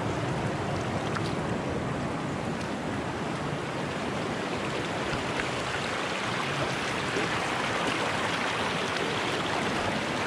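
Shallow mountain stream running over rocks and small rapids: a steady rush of water.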